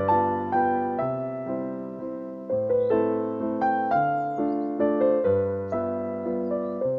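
Background music: a slow, gentle piano melody over held bass notes.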